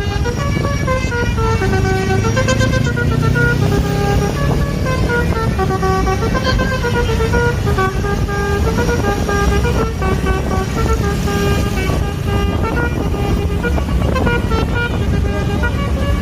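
A bus's basuri 'telolet' musical air horn playing a tune of quick stepped notes that go up and down, over a steady low rumble.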